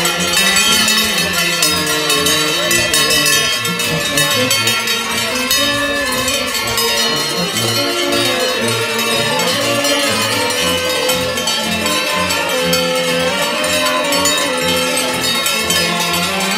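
Many large cowbells clanging continuously, worn by the masked figures as they walk in procession, with a tune playing underneath.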